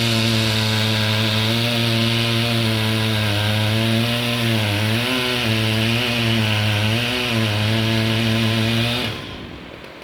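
Chainsaw running at high revs, its pitch dipping briefly three times as it takes load in the wood, then dropping off sharply about nine seconds in.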